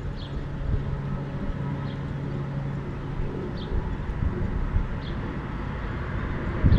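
Outdoor ambience at a closed railway level crossing: a continuous low rumble with a steady low hum through the first half. A short high chirp repeats about every one and a half seconds, and the rumble grows louder near the end.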